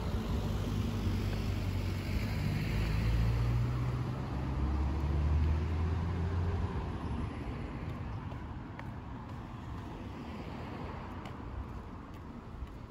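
A car driving by on the street beside the sidewalk: a low engine hum and tyre noise, loud for the first several seconds, then fading away about halfway through, leaving quieter background traffic.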